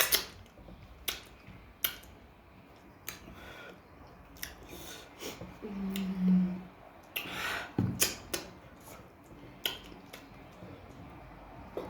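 Close-up eating sounds: scattered sharp clicks and crunchy smacks of chewing, with a short hummed "mm" about six seconds in.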